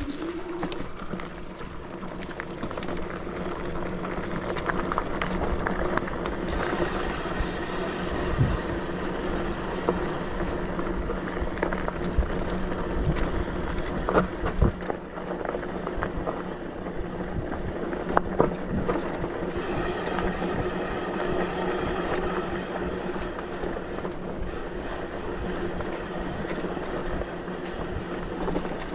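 ENGWE X24 fat-tyre electric bike riding over rough ground: a steady hum under a rush of tyre and wind noise, with a few sharp knocks and rattles from bumps along the way.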